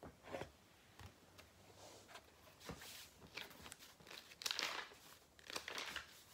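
Paper pages of a small notebook rustling as they are flipped through: a string of short rustles, the loudest about four and a half and again about five and a half seconds in.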